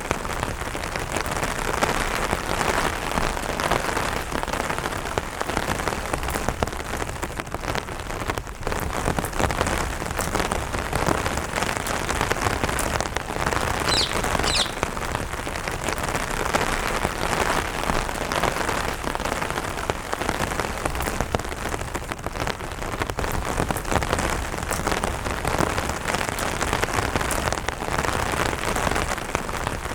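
Light rain pattering steadily on an umbrella canopy, with one brief high bird chirp, twice in quick succession, about halfway through.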